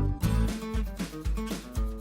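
Background music: plucked acoustic guitar in a country style with a steady bass beat.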